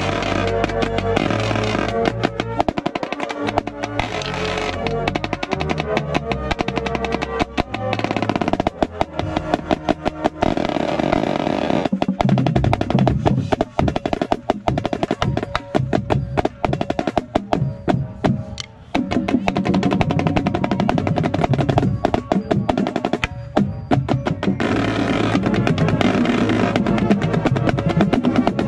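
Marching snare drum played right at the microphone in fast strokes and rolls, with the rest of the marching band playing behind it. The playing breaks off briefly about 14 and 19 seconds in.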